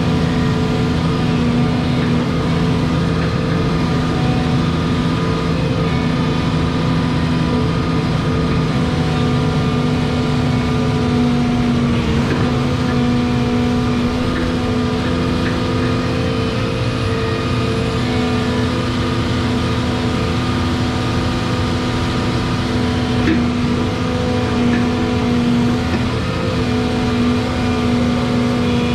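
Volvo 235EL excavator's diesel engine running steadily under working load as the boom and levelling beam are worked, a constant machine hum with steady tones.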